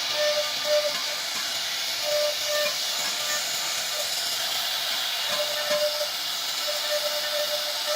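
CNC wood router running, a steady high hiss from the spindle and cutting, with a short mid-pitched tone that comes and goes every second or so as the machine moves.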